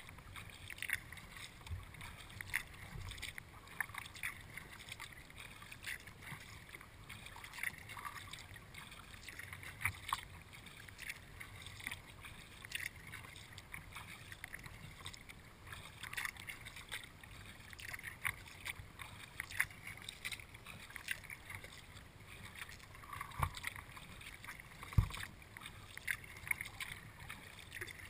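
Kayak paddling: the paddle blades dip and splash, and water drips and patters near the bow in an uneven series of small splashes. Two low knocks come near the end.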